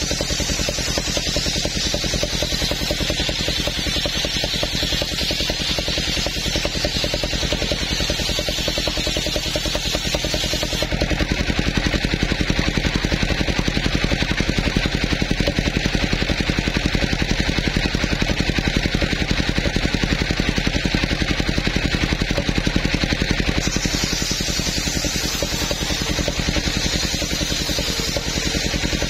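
Large table circular saw ripping a coconut-palm log lengthwise, the blade cutting continuously over the steady running of the machine's engine. The tone of the cut shifts about eleven seconds in and again near the end.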